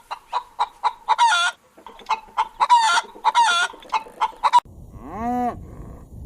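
A chicken clucking in a quick run of short clucks, broken by a few longer squawking calls. About four and a half seconds in, it cuts to a cow mooing once, a long low call that rises and falls in pitch.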